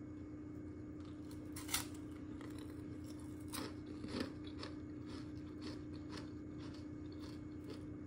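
Crisp-baked caramel nut tarts lifted off a metal wire cooling rack: a few light clicks and crackles of the crispy pastry against the rack, the loudest about two seconds in, over a steady low hum.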